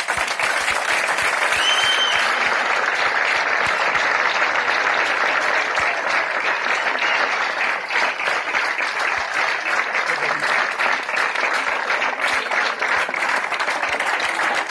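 Large crowd applauding, breaking out all at once and holding steady throughout, with a short high whistle-like sound about two seconds in.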